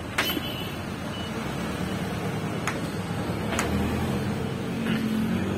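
A few sharp clicks as the DCA ASM02-100A 4-inch angle grinder is handled, then near the end its motor starts running with a steady hum, over steady background noise.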